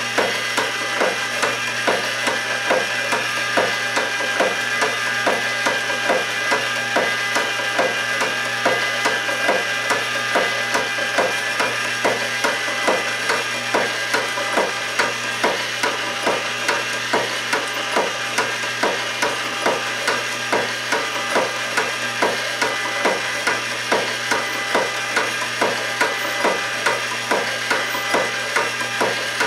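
Wooden gears and linkages of a kinetic running-horse sculpture clacking in a steady rhythm, about two knocks a second, over a steady hum.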